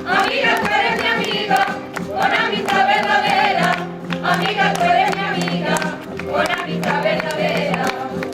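A coro rociero singing sevillanas with several voices, accompanied by strummed Spanish guitar in a steady, rhythmic beat.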